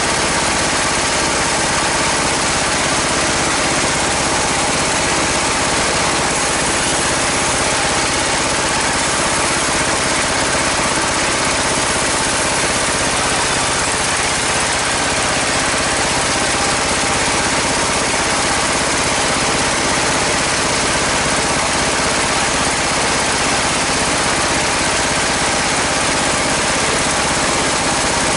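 Sawmill bandsaw driven by a 24 hp engine, running steadily and loudly without a break.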